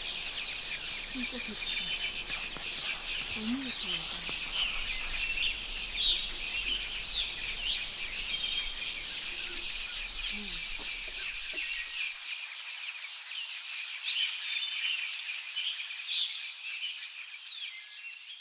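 Forest ambience: many small birds chirping and singing over a steady high-pitched insect drone. A faint low background noise drops away about twelve seconds in, while the birds and drone carry on.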